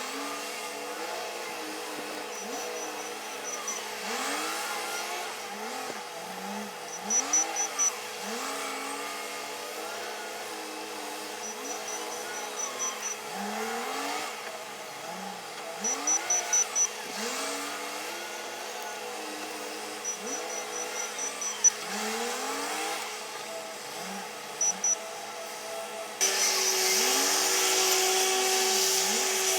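Komatsu WA500 wheel loader working: its engine revs up again and again in short rising sweeps, broken by bursts of rapid high-pitched beeping. About 26 seconds in, a louder, steady engine drone takes over.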